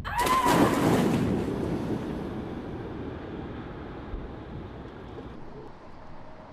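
A sudden loud splash-like rush of noise, with a short tone in it that rises and falls, dying away over about three seconds into a steady rushing of river water and wind.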